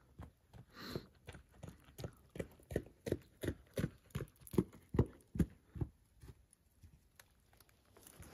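Footsteps of a person jogging on a gravel road, about two to three steps a second, growing louder as the runner approaches, loudest about five seconds in, then fading away about a second later.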